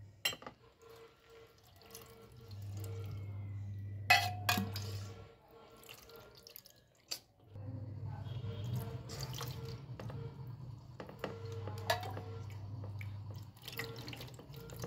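Water poured from a small brass pot over a brass idol onto a brass plate, splashing and dripping, with a few sharp metallic knocks. A low steady hum comes and goes underneath.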